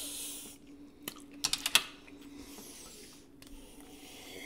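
A short hissing rush of air, then a quick cluster of sharp clicks and clinks about a second and a half in as a glass drinking mug is picked up and handled.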